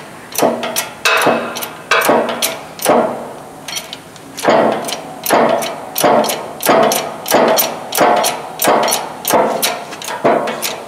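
Hydraulic shop press being hand-pumped to press gears onto a transmission countershaft. Each stroke of the pump handle gives a sharp clack and a short rasping ring. The strokes are uneven at first and settle into about two a second from about four seconds in.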